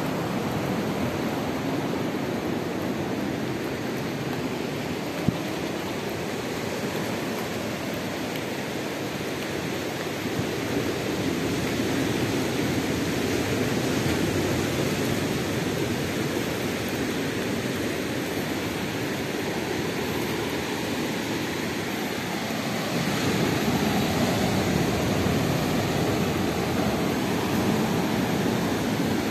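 Surf washing onto a sandy beach, a steady rushing noise that grows a little louder in the last few seconds. A single sharp click about five seconds in.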